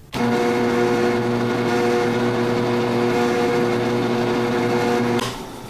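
Bench drill press switched on and running with a steady hum while the bit bores through the back clay cap of a PVC potassium-nitrate/sugar rocket motor to reach the delay charge; it starts suddenly and stops about five seconds in.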